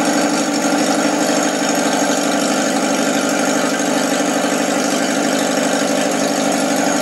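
UZAM-412 inline-four engine idling steadily at a fast idle, with too many idle revs, while its carburettor idle is being adjusted. It is heard through a television's speaker, thin and without its low end.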